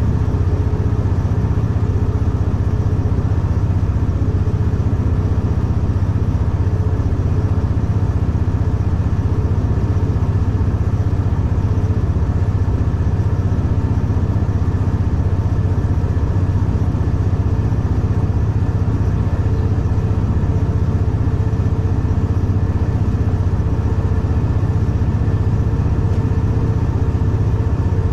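A V/Line A class locomotive's EMD diesel engine running steadily, heard from inside the cab as a constant low drone that holds the same pitch throughout.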